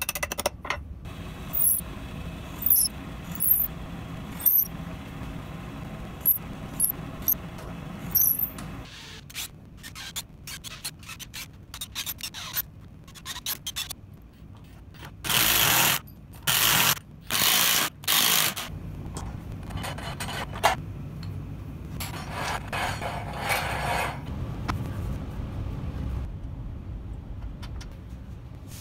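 Workshop handwork on a wooden vise: a string of short high squeaks and light knocks, then a cordless drill run in four short bursts of about a second each, followed by rubbing.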